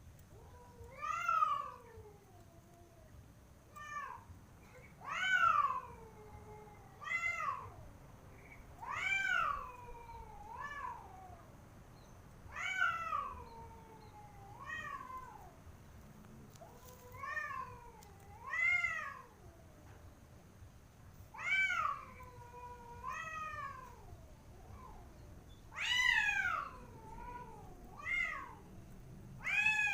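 Domestic cats yowling at one another in a standoff: long, drawn-out calls that rise and then fall in pitch, one every second or two.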